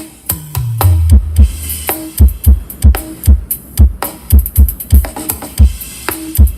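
Bass-heavy electronic dance music played through a speaker cabinet on a sound test. A deep bass note slides down in pitch about half a second in, then a steady kick-drum beat runs at about three hits a second.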